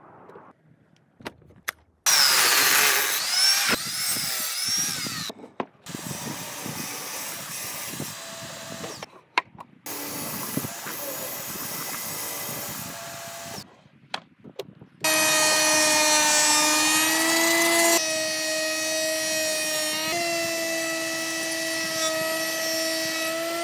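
Clips of corded woodworking machines cut together: a table saw cutting along a board, then a benchtop thickness planer running with a steady whine as a board feeds through. A few clicks in the first two seconds.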